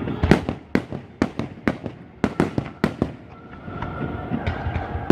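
Aerial fireworks display: sharp bangs going off in quick, irregular succession, several in each second.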